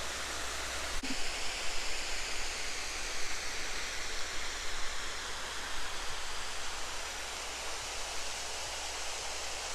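Water rushing steadily over an old mill dam, an even noise without any pitch.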